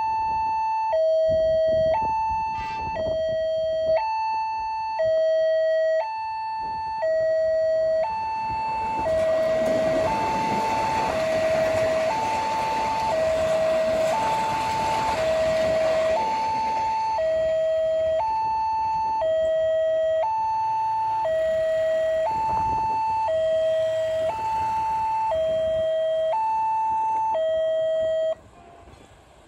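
Railway level-crossing warning alarm sounding a steady two-tone high-low signal, about one cycle a second, which means a train is approaching or passing. An electric commuter train (KRL) passes from about eight to seventeen seconds in, a rush of wheels on rail that swells and fades under the alarm. The alarm stops about a second before the end as the crossing clears.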